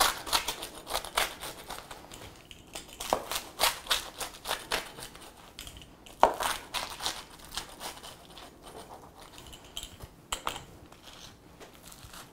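Wheel pizza cutter rolling through a crisp, crackery flatbread crust on a wooden board: a run of crunching crackles, with one sharp crack about six seconds in, thinning out toward the end.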